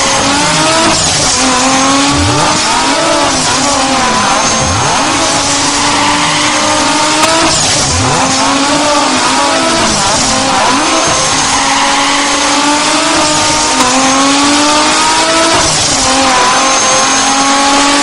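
Dubbed-in vehicle engine sound effect: a motor revving up and down again and again in repeated rising sweeps, over a steady hiss.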